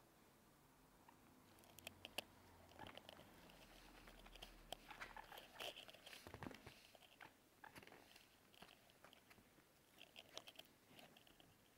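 Faint scattered clicks and rustling from a guinea pig scurrying and hopping about on a leather sofa and blanket.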